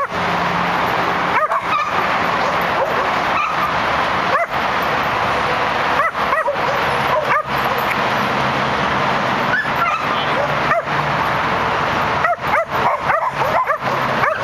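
Dogs barking and yipping almost without pause, with many barks overlapping and short high yelps that rise in pitch.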